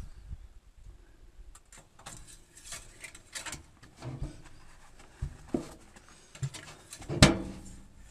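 Handling noises at a loader's engine compartment during an engine crankcase oil check: scattered light clicks and rustles, with one sharp knock about seven seconds in that rings briefly.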